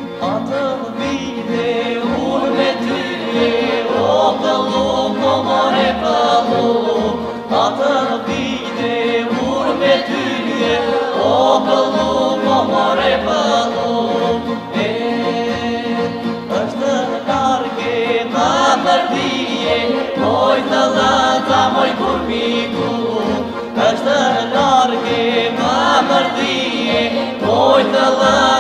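Southern Albanian folk song: a group of singers over a steady held drone, with folk instruments playing along.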